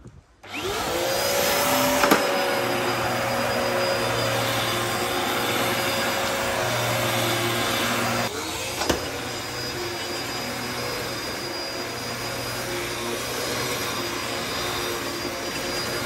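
Dyson DC01 upright vacuum cleaner switched on: its motor spins up to a steady whine and runs while the cleaner is pushed over a carpet strewn with grit. The tone shifts slightly about eight seconds in.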